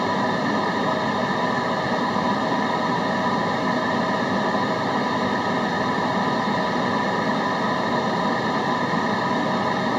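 Steady white noise: an even, unchanging hiss with a few faint steady tones running through it.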